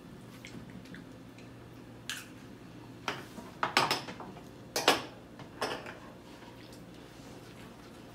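Spoon clinking and knocking against a plastic mixing bowl while cake batter is stirred: a few sharp clicks spread over the middle seconds, the loudest about five seconds in.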